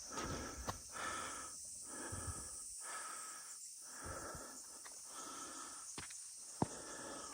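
A person breathing hard, in and out about once a second, while walking up a mountain path, with occasional sharp footfall clicks and a steady high insect buzz behind.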